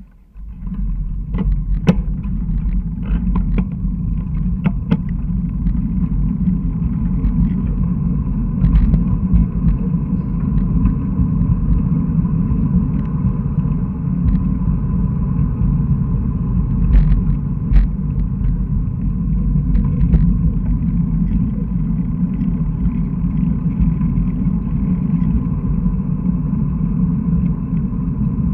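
Riding noise picked up by a handlebar-mounted camera on a bicycle: a steady low rumble from tyres on asphalt and vibration through the handlebar, with scattered clicks and knocks from bumps, most of them in the first few seconds.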